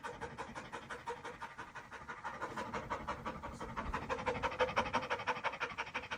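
A dog panting rapidly in an even rhythm, about seven breaths a second, growing louder toward the middle and easing off near the end.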